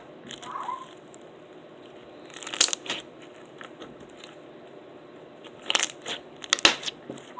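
Bead-filled slime being squished and worked in the hands, giving short crackling pops in two clusters, about two and a half seconds in and again near six seconds.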